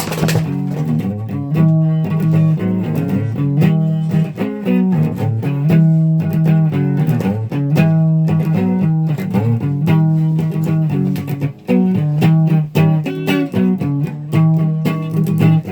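Electric guitar played through an amplifier: a repeating riff of picked notes over a recurring low note.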